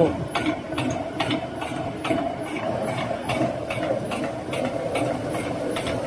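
Water-powered stone mill grinding grain: the runner millstone turning with a steady rumbling hum, and the wooden feed shoe under the hopper knocking in a regular beat of about two clacks a second as it shakes grain into the stone.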